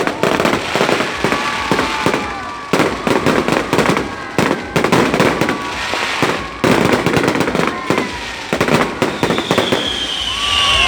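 Fireworks display going off: a dense run of bangs and crackling, many bursts close together.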